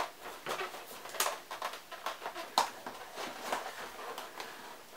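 Cardboard box being handled and opened by hand: a string of irregular scrapes, taps and rustles as the flaps and sides are worked.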